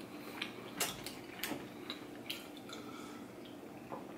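A person chewing a large mouthful of chocolate cake with ganache: faint, irregular mouth clicks and smacks, roughly one every half second.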